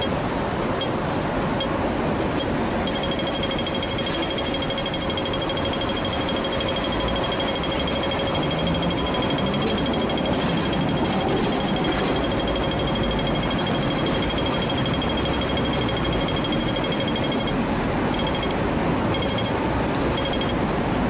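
Hong Kong pedestrian-crossing audible signal. It ticks slowly, switches a few seconds in to rapid ticking that runs for about fifteen seconds, which is the walk phase, and goes back to slow ticks in the last few seconds. Steady city traffic noise runs underneath.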